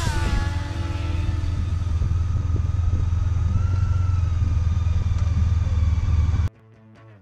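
Motorcycle riding along at steady speed, heard from a camera mounted on the bike: a steady low rumble. About six and a half seconds in it cuts off suddenly to quiet plucked-string music.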